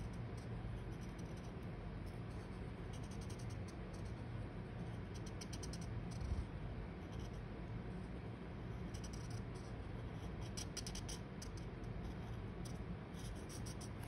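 Art marker tip scratching across paper in short zigzag strokes, coming in a few runs, over a steady low room hum.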